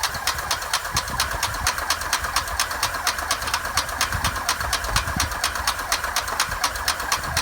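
Piston engine running steadily, with a rapid, even train of sharp exhaust pulses.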